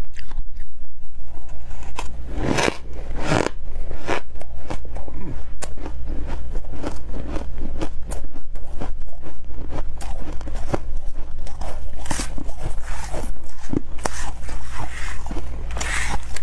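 Crushed ice being bitten and chewed close to the microphone: a dense, continuous crackle of small crunches, with two louder bites about two and a half and three and a half seconds in. A steady low hum runs underneath.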